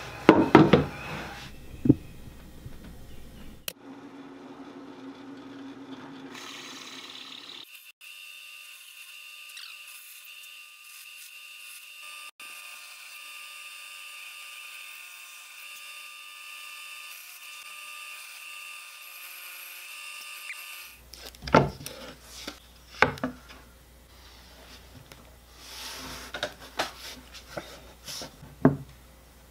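Knocks and thuds as a wooden guitar body is handled on a workbench. Then a drill press runs steadily with a faint whine as it bores into the swamp ash body. Near the end come more knocks and handling as a template is pressed onto the body.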